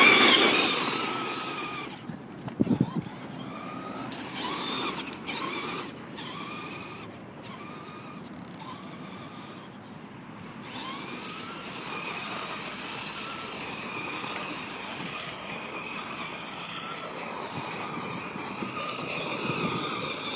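Traxxas Monster Mutt RC monster truck's electric motor and drivetrain whining, the pitch rising and falling as the throttle is worked while it drives and drifts on dirt. It is loudest at the start, when the truck is spinning its tires close by and throwing up dirt.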